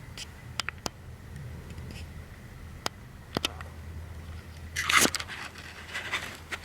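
Scattered light clicks and a short, louder rustling scrape about five seconds in, the sound of things being handled at a desk.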